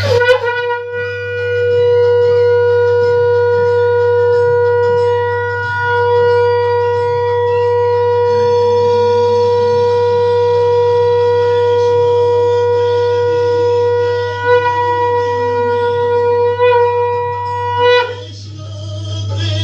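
Conch shell (shankh) blown in one long, steady note of about eighteen seconds, wavering a little in its last few seconds before it stops, over a low steady hum.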